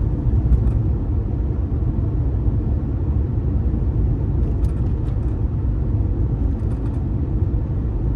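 Subaru Baja driving along, heard from inside the cabin: a steady low rumble of engine and road noise, with a few faint ticks partway through.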